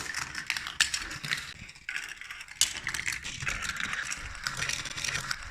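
Marbles rolling and clattering through a plastic Gravitrax marble run: a dense stream of clicks and rattles.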